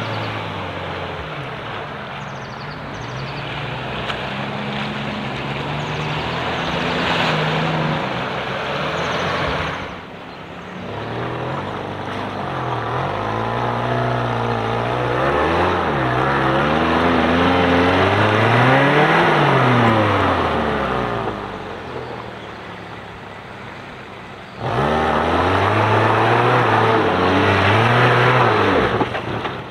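Suzuki Samurai 4x4's engine revving up and down over and over as it crawls through deep mud ruts, its pitch rising and falling in waves. The highest rev comes a little past halfway. The sound eases twice and comes back in suddenly near the end.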